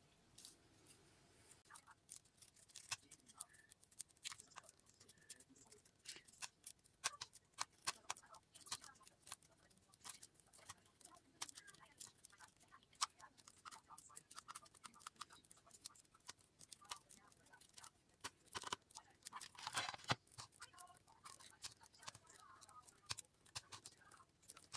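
Rolled paper tubes being woven between upright paper stakes: faint, irregular small clicks and crackles of paper, with a denser cluster near the end.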